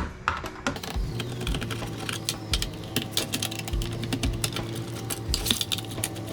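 Rapid, irregular small clicks and clatter of electronic scrap parts being handled and pulled apart on a workbench, with a steady low hum starting about a second in.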